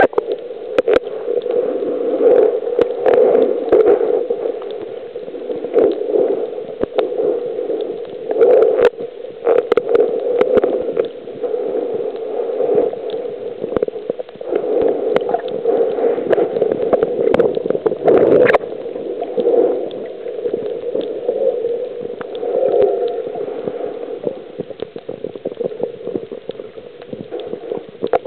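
Muffled rushing and gurgling of water heard through a camera held underwater while snorkelling, swelling and fading as it moves, with scattered clicks and knocks from handling.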